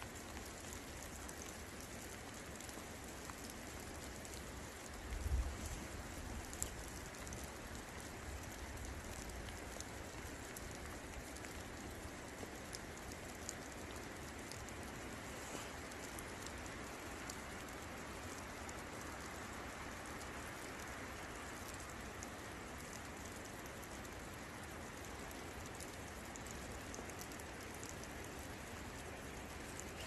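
Steady rain falling, with scattered close drops ticking and a brief low thump about five seconds in.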